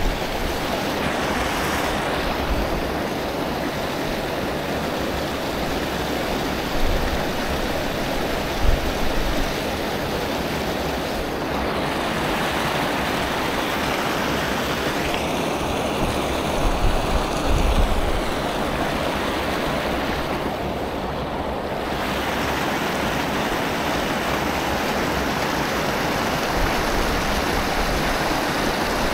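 Creek water rushing steadily, with intermittent low rumbles of wind on the microphone.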